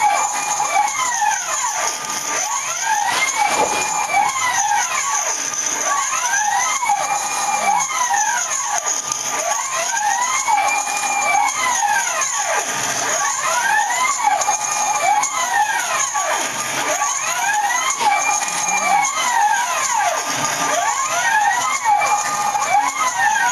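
A hobby CNC machine's axis stepper motors whine in overlapping rising-and-falling pitch glides, about one every few seconds, as two axes move together to trace a spiral. A steady whine runs underneath.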